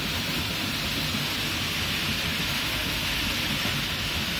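Steady rain-like hiss of freshly puffed rice pouring out of a muri roasting machine and sliding down its sheet-metal chute, with a low rumble of the running machine beneath.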